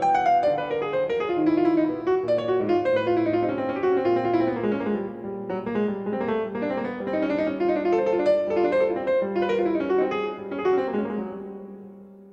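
Grand piano playing solo in a busy jazz passage of many quick notes, then letting a held chord fade away near the end.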